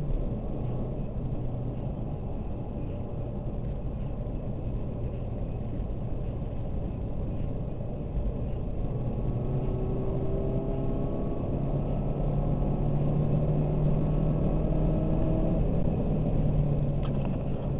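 A car running down the road, heard from inside the cabin: a steady low engine hum over tyre and road noise. From about halfway through, faint tones climb slowly in pitch and the sound grows a little louder as the car gathers speed.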